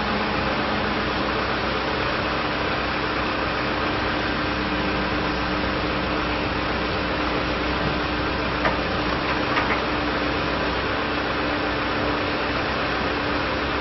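2007 John Deere 310SJ backhoe loader's diesel engine running steadily, with a few light clicks a little past halfway.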